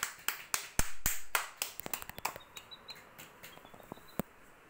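A small child clapping his hands, quick irregular claps that thin out to a few scattered ones after about two seconds. Faint high peeps of baby chicks come in during the second half.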